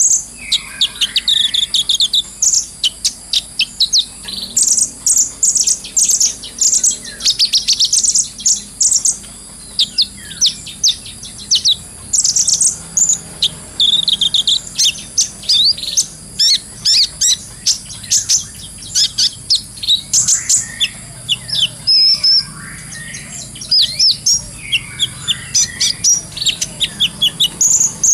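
Kolibri ninja sunbird singing a fast, high-pitched twittering song of rapid chirps and trills, almost without pause.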